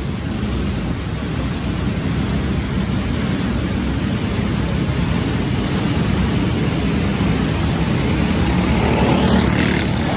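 Go-kart engines racing around an indoor dirt track, a steady drone that echoes in the arena hall. It grows louder near the end as one kart passes close by.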